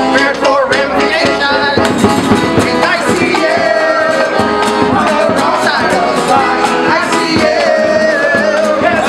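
A man singing with a strummed acoustic guitar, holding some long notes.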